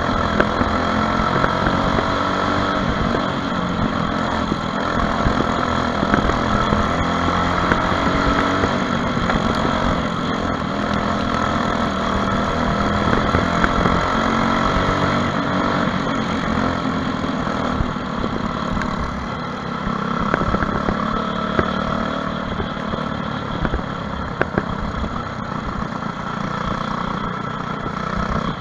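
Onboard sound of a racing kart's Briggs & Stratton LO206 single-cylinder four-stroke engine running hard, its pitch rising and falling as it speeds up and backs off around the track.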